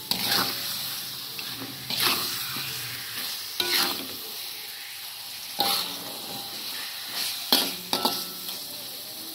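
Chicken pieces in spice paste sizzling in a metal wok, with a metal spatula scraping across the pan about six times, roughly every two seconds, as the meat is stir-fried in the paste before the coconut milk goes in.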